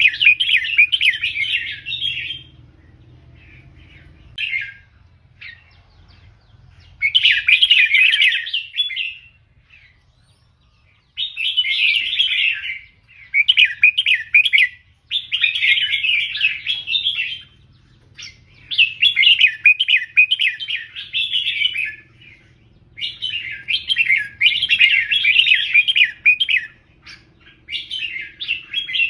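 Red-whiskered bulbul singing: bright, quick warbling phrases of one to two seconds each, repeated many times with short pauses, with a longer lull a few seconds in.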